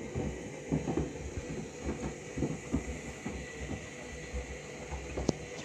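Washing machine running a wash cycle with trainers tumbling in the sudsy drum: irregular thumps and knocks over a steady motor hum, with one sharper knock near the end.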